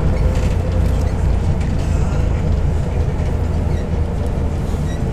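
Interior of a moving MAZ-105 articulated city bus: the engine and running gear give a steady, loud low rumble.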